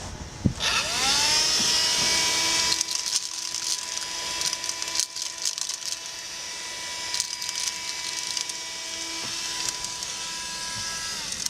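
Handheld car vacuum cleaner switching on: its motor whine rises and settles to a steady high pitch within about a second. From about three seconds in it runs with irregular crackling rattles, and near the end the whine starts to drop as it switches off.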